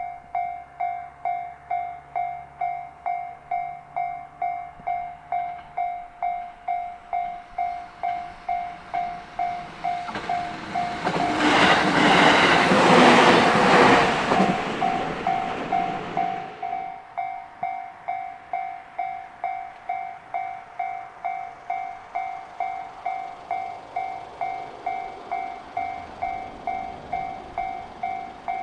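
Japanese level-crossing warning bell ringing steadily, about three rings every two seconds. In the middle a train passes over the crossing for about six seconds, a loud rush with clattering wheels that briefly drowns the bell, then stops fairly suddenly while the bell keeps ringing.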